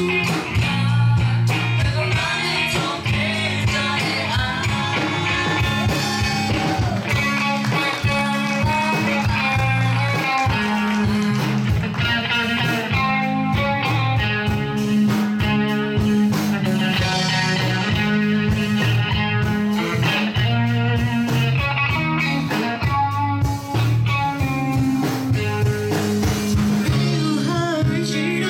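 Live rock band playing a Karen pop song, with electric guitar to the fore over bass and drums.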